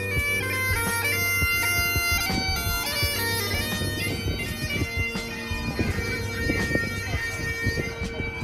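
Highland bagpipes playing a melody of held notes over steady, unbroken drones.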